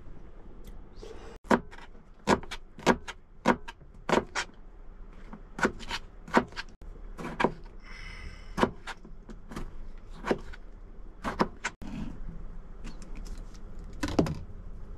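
Chef's knife chopping tomatoes and onion on a plastic cutting board: sharp knocks of the blade on the board, irregular, sometimes in short runs about two a second. There is a brief rustle about halfway through.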